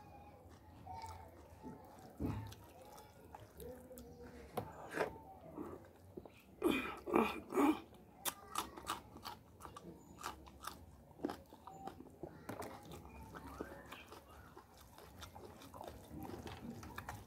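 Close-miked mouth sounds of eating: chewing and crunching at irregular intervals, with a cluster of loud crunches around the middle as a whole green chili is bitten.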